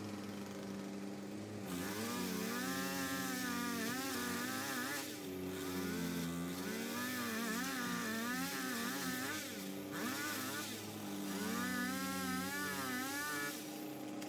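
Chainsaw cutting, its engine pitch wavering quickly as it bogs and picks up in the wood, in three long stretches with short breaks between. A steady engine hum from another machine sits under it and is heard alone at the start and near the end.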